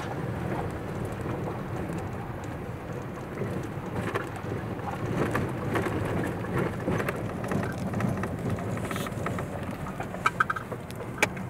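Cabin noise of a 4x4 driving on a rough dirt track: steady engine and tyre rumble with a constant low hum, and many small rattles and clicks from stones and loose gravel. A few sharper knocks near the end.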